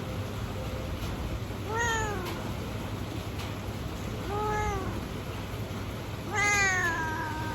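A domestic cat meowing three times, each meow arching up and falling away; the third is longer and drawn out. A steady hiss of rain runs underneath.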